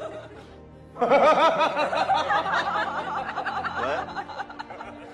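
Laughter in quick, rapid bursts starting about a second in, with music.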